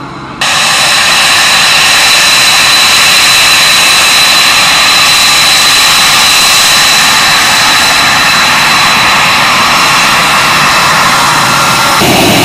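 Fighter jet engine running close by with a loud, steady high-pitched whine, cutting in abruptly about half a second in. Near the end the sound shifts: one tone drops out and the low end grows louder.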